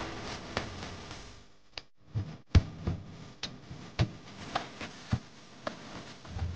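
A steady hiss fading out over the first second and a half, then a string of light clicks and knocks at about two a second, the loudest about two and a half seconds in.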